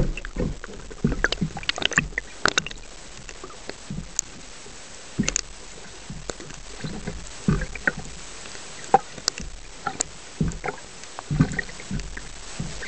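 Muffled underwater sound picked up through a camera housing just below the sea surface: a steady wash of moving water broken by scattered clicks and soft knocks at irregular intervals.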